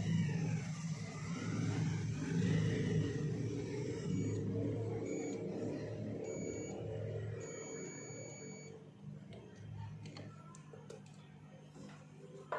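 Digital multimeter's continuity buzzer beeping three times, two longer beeps around a short one, as the probes touch points on a phone circuit board: the tone signals continuity, the sign of a short to ground. A steady low hum runs underneath.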